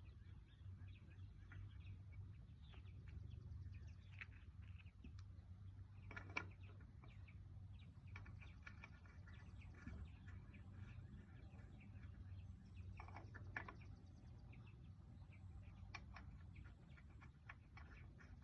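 Near silence: a faint steady low hum with scattered faint chirps and light clicks, two slightly louder clicks about six and thirteen seconds in.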